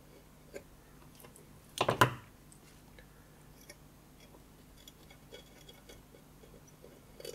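Light ticks and clicks from working a soldering iron and copper solder wick over a small circuit board, with one louder clack about two seconds in, over a faint steady hum.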